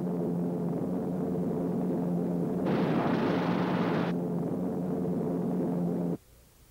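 Lockheed P-38 Lightning on the ground, a steady rushing noise with a low hum under it and a harsher, brighter burst from about two and a half to four seconds in. It cuts off suddenly near the end.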